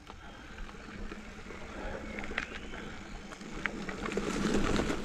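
Mountain bike rolling over a gravel forest trail: tyres crunching on loose stones and debris, with scattered ticks and rattles from the bike, growing louder about four seconds in.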